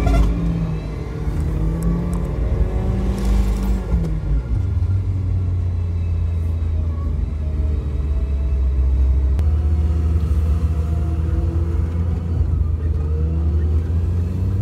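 Car engine and road noise heard from inside the cabin while driving; the engine note drops about four seconds in, then holds steady.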